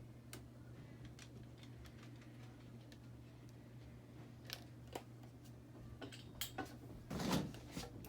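Hampton Bay Hawkins ceiling fan running on high: a faint, steady low motor hum with scattered light clicks and ticks, and a short louder noise about seven seconds in.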